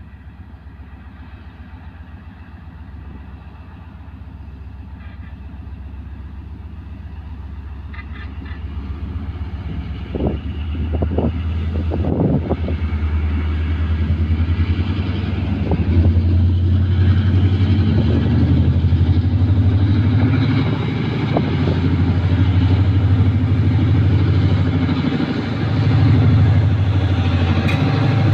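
Diesel-electric locomotive engine accelerating as the train approaches. Its low, throbbing drone grows steadily louder, with a few short sharper sounds about ten to twelve seconds in.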